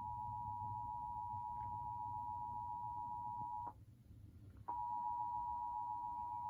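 Emergency Alert System two-tone attention signal, 853 Hz and 960 Hz sounding together as one steady tone. It breaks off for about a second midway, then resumes, over a low hum. It marks an EAS broadcast test.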